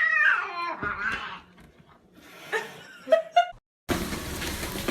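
A house cat's drawn-out meow trailing off about a second in, followed by a few short high calls. Near the end, a steady background hiss and faint voices take over.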